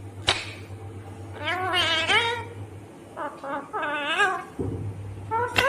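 Indian ringneck parakeet vocalizing: a short sharp squawk, then a string of whiny calls that waver up and down in pitch, over a steady low hum.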